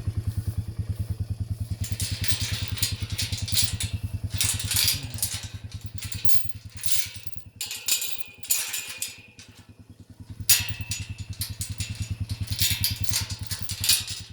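ATV engine running slowly with an even low pulse, under repeated short clattering and rustling noises. The engine sound fades for a few seconds about halfway through, then picks up again.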